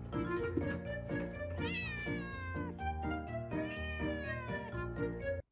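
A kitten meowing twice, each meow a long call that falls in pitch, the first about one and a half seconds in and the second near the end, over background music with a regular beat.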